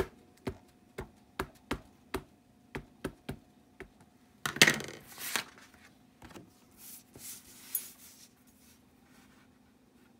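Ink pad dabbed repeatedly onto a rubber stamp on a clear acrylic block: about ten light taps, two to three a second. Near the middle a louder rustle of paper and plastic as the stamp is handled and pressed, then softer rustling.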